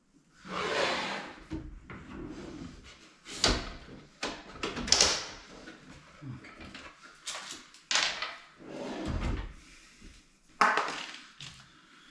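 Wooden vanity cabinet door and handle hardware being handled: a series of knocks, clicks and scraping rubs, with the sharpest knocks about three and a half seconds in, near five seconds, and close to the end.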